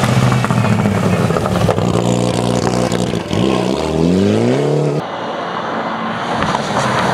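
Rally car engines running hard at full throttle, in short cuts from car to car. About three seconds in, one engine rises steeply in pitch as the car accelerates, and it is cut off abruptly about five seconds in.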